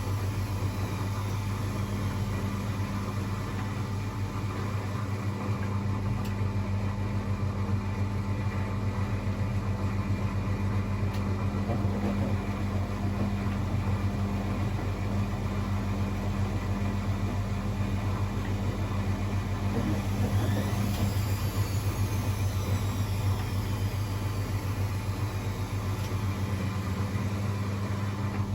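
Old Blomberg 240W washing machine running with a steady low hum.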